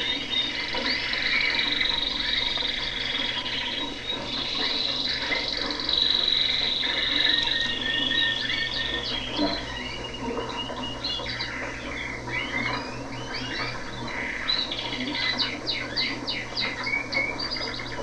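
Many caged canaries singing and chirping at once, a dense, unbroken mix of overlapping trills and short chirps.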